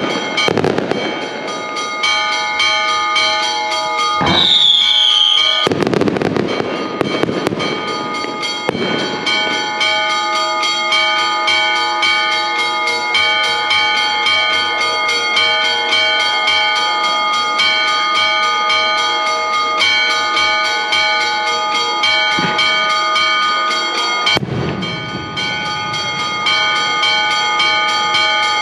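Church bells ringing in a rapid, continuous festive peal, mixed with firework bangs and crackling in the first several seconds, a whistle falling in pitch about four seconds in, and another firework burst near the end.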